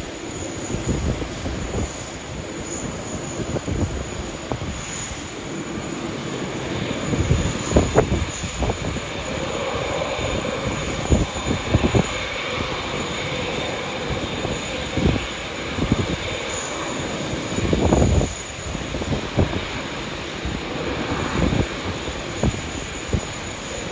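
Jet airliner engines running at an airport: a steady rush with a faint whine through the middle, broken several times by short bursts of low buffeting.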